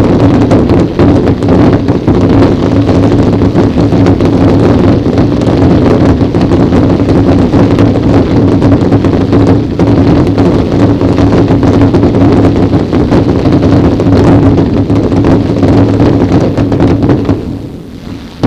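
A dense barrage of fireworks bangs and crackling, loud enough to overload the microphone into a distorted, continuous din. It lets up briefly near the end.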